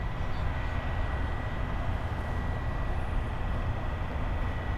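Steady low rumble of outdoor background noise, with a faint steady high-pitched whine over it and no distinct sound events.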